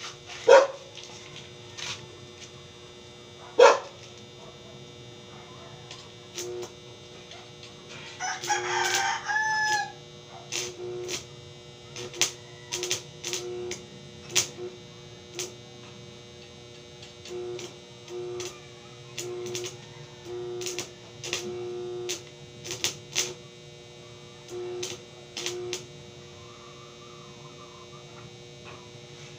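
Two loud metal clanks, about half a second in and near four seconds, then a rooster crows once about eight seconds in. Scattered short knocks and clicks from work on steel grille bars follow for much of the rest, over a faint steady hum.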